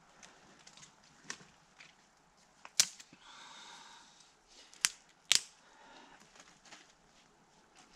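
Dry kindling being handled and snapped at a fire pit: a few sharp snaps, the loudest about three seconds in and two close together about five seconds in, with a short scraping rasp just after the first loud one.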